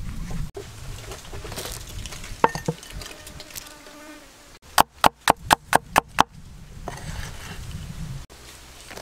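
Soft rustling and nibbling as rabbits eat leafy greens, then a knife striking a wooden chopping board seven times in quick succession, about four strikes a second, followed by soft rustling.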